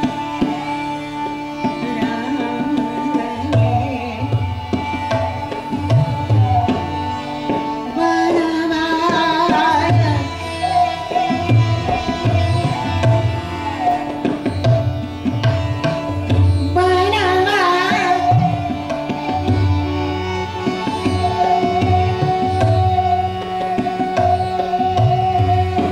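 Indian classical devotional music: a steady tanpura drone under a tabla keeping a regular beat, with short wavering phrases of a woman's singing about 8 and 17 seconds in and again near the end.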